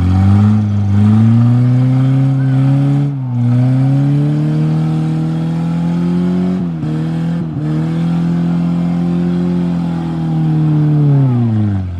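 Off-road 4x4's engine revving hard under load, held at high revs with brief dips in pitch three times, then dropping off sharply near the end.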